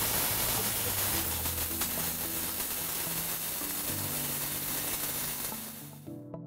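CO2 (gas-shielded MIG) welding arc crackling and hissing steadily as the torch lays a bead, stopping abruptly about six seconds in.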